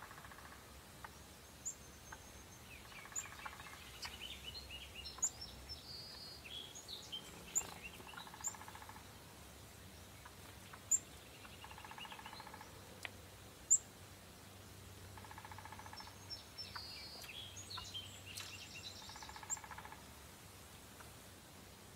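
Wild birds calling in the woods: many short, sharp chirps and whistles, the loudest standing out now and then, with a short trilled call repeating every three to four seconds.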